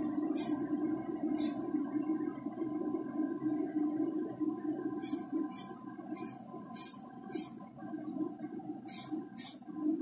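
Short bursts of spray paint hissing, about ten in three clusters, over a steady motor hum from the spray booth.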